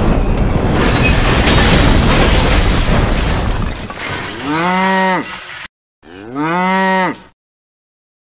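Explosion sound effect: a loud blast noise that fades out over the first four seconds or so. It is followed by two cow moos, each about a second long, one right after the other.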